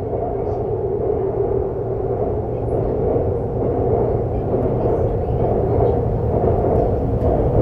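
Seoul subway train running along the track: a steady rumble with a band of wheel-and-rail noise, growing slightly louder.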